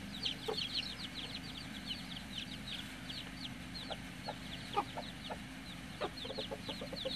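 Chicks peeping nonstop, many short high falling peeps each second, with a hen clucking now and then and a quick run of clucks near the end.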